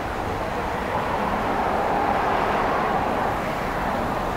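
City street traffic noise, with a passing vehicle swelling up about a second in, loudest around two to three seconds, then easing off.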